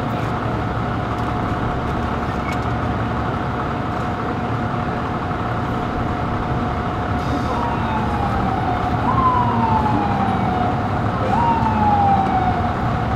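Steady low rumble of idling vehicles with a constant hum. From a bit past the middle, an emergency-vehicle siren sounds in three falling wails, each jumping up and then sliding down over about two seconds.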